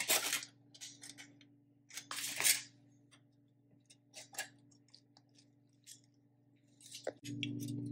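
Aluminium foil crinkling and rustling as hands unwrap and tear a paratha, in scattered bursts with small clicks, loudest about two seconds in. A steady low hum comes in near the end.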